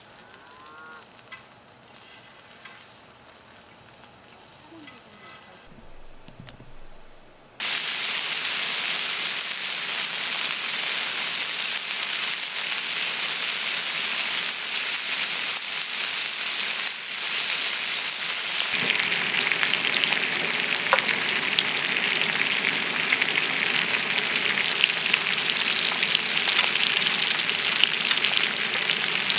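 Food frying in a hot pan. After several seconds of quiet with a faint steady high tone, a loud sizzle starts suddenly and runs on, growing fuller and more crackly partway through.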